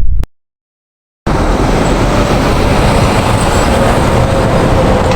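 After about a second of dead silence, steady loud vehicle noise with a faint engine hum, as of heavy traffic passing close by.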